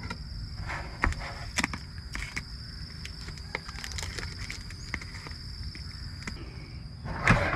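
Scattered light clicks and knocks of a camp burner and cookware being handled and set up, with a louder knock near the end. Under it a steady high insect trill runs and stops about six seconds in, over a low steady hum.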